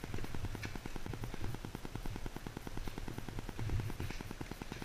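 A rapid, even electronic ticking buzz from the GoPro Hero3 White Edition camera, which the uploader puts down to its Spotmeter being switched on. A few dull low thumps sound under it.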